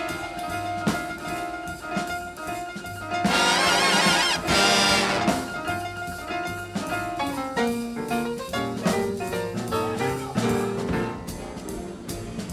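Instrumental jazz music: brass horns playing held notes over a steady drum kit beat.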